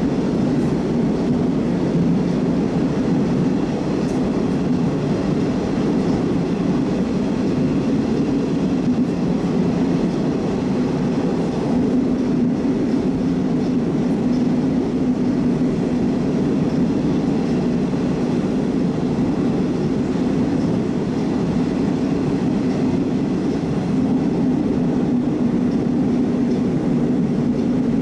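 Moscow metro 'Oka' train running, heard from inside the carriage: a steady rumble with a constant low hum.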